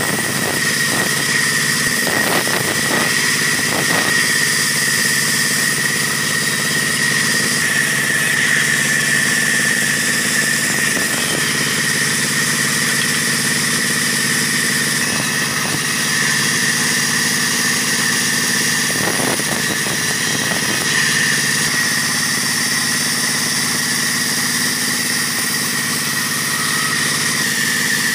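Large band saw running steadily with a high whine, its blade at times cutting through a block of acacia timber fed by hand.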